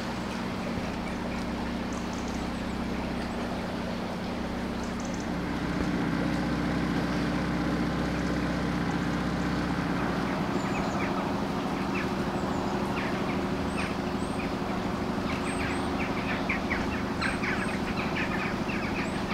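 Outboard motor of a small fibreglass canal cruiser running steadily under way, picking up slightly about five seconds in. Birds call in short chirps through the second half.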